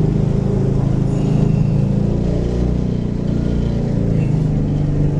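Motor vehicle engine running steadily with a low, even drone.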